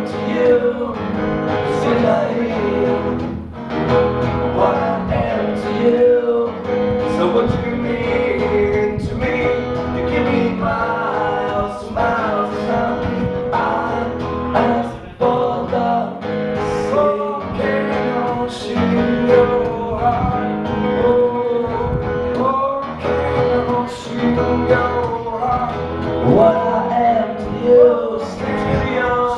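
Live acoustic song: two acoustic guitars strummed while a man sings.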